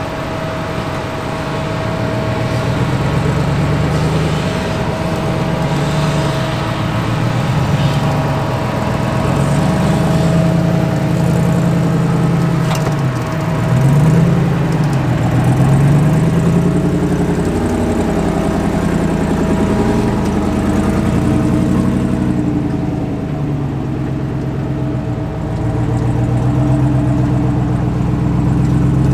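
An off-road Jeep engine running and revving up and down again and again, with a steady high whine over it that drops out for several seconds in the middle.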